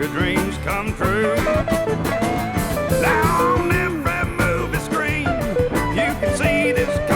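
Country band record playing an instrumental passage: a lead guitar line with bent notes over bass and a steady drum beat, with no words sung.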